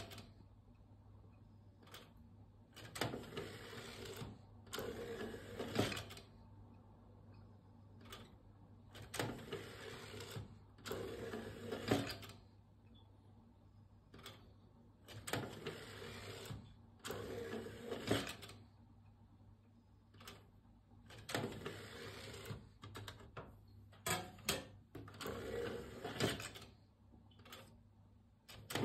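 Philips CD 160 CD player's disc mechanism whirring and buzzing in short bursts of about a second each, starting and stopping repeatedly, as the disc spins up and the laser seeks. A steady low hum runs underneath.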